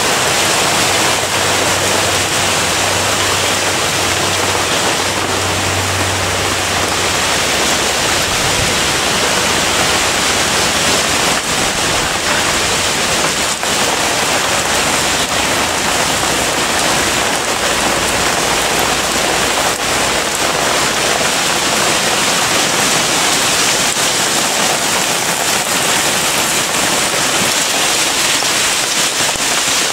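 Hailstorm: hailstones and rain pelting leaves, trees and grass in a loud, steady, dense hiss, with an occasional sharper hit.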